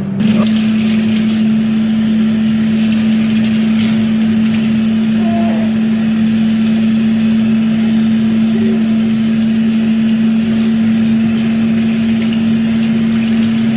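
Kitchen tap running into a stainless steel sink while a toddler's hands are washed under the stream. Underneath is a loud, steady machine hum.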